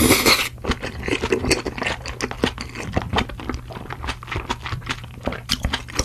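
Close-miked wet chewing of a mouthful of spicy rice cakes (tteokbokki), a steady run of irregular soft clicks and squelches. It opens with a short breathy rush in the first half second, as after food that is too hot.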